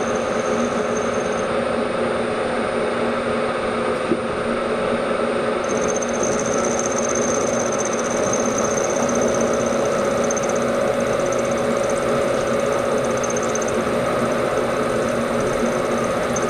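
Bridgeport milling machine running, its end mill cutting a slot in a metal bar held in the vise: a steady machine hum, with a thin high whine that drops out just after the start and returns about six seconds in.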